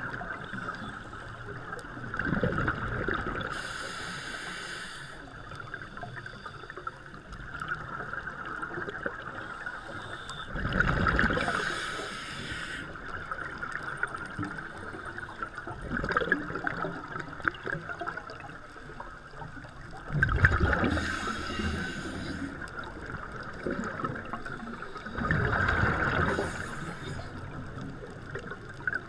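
Scuba regulator breathing underwater: about four bubbling, rumbling exhalations several seconds apart, with the hiss of the regulator, over a steady underwater background hiss.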